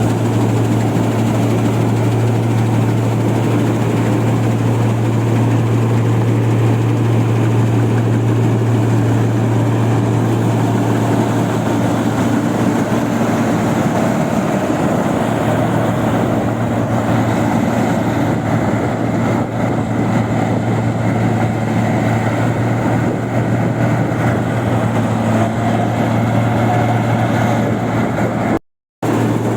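Rice-processing machine running steadily under its engine, with a strong, even low hum. The sound cuts out for a split second near the end.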